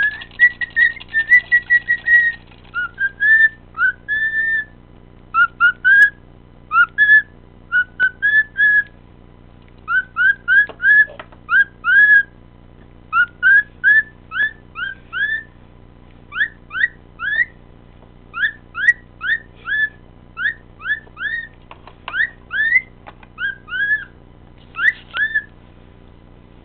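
Cockatiel whistling: a held, warbling note at first, then a long string of short, upward-sweeping whistles in quick runs of two to five, with short gaps between runs.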